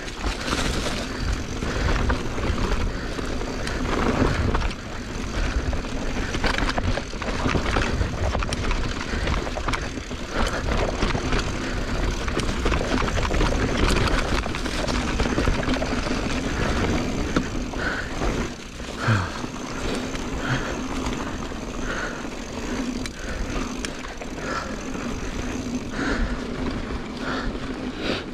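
Mountain bike riding a dirt trail at speed: wind rushing over the microphone and knobby tyres rolling over the dirt, with a steady low hum and many small rattles and knocks from the bike over the rough ground.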